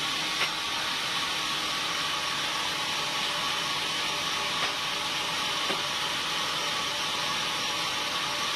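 Sawmill machinery running with an even, steady hiss and a faint steady hum, with a few light clicks.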